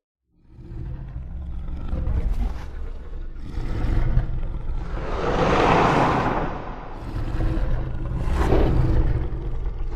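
Giant-monster (kaiju) roar sound effect: a deep rumble starting about half a second in, with loud roaring swells that rise and fall in several waves, the strongest around the middle and near the end.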